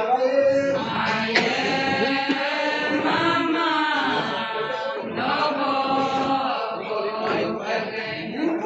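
Adi Ponung song: group chanting, a male lead singer on a microphone with a chorus of voices, in long, drawn-out sliding notes.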